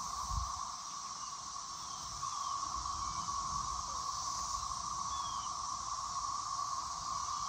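Chorus of many cicadas: a steady, unbroken drone, with a low rumble underneath and a short thump just after the start.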